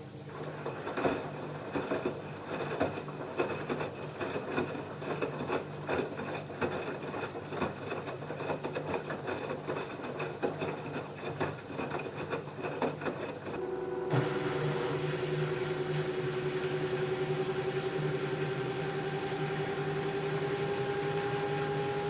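LG F10B8QD1 direct-drive washing machine: the drum turns with dense, irregular knocks and clicks, then about 13 seconds in the sound changes to a steady motor whine that slowly rises in pitch as the drum speeds up into a spin.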